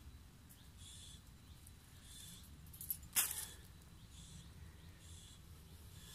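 Faint rustling of footsteps through dry bamboo-leaf litter, coming in short soft patches, with one sharp snap a little past the halfway point.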